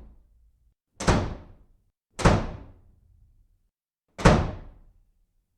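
Three sudden heavy thuds, like bangs or slams: about a second in, again a second later, and once more near the end. Each dies away in under a second, with silence between.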